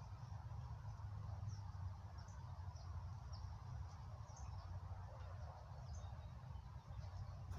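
Faint outdoor background: a steady low rumble with short, high chirps about once a second.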